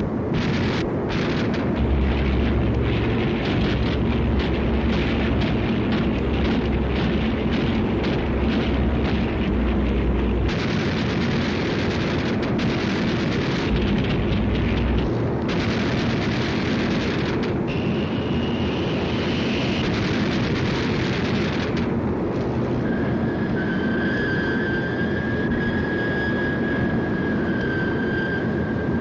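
Newsreel air-battle sound track: a dense rumble of aircraft engines and blasts, with rapid crackling bursts through the first ten seconds or so. Near the end a high, steady whine sets in and holds.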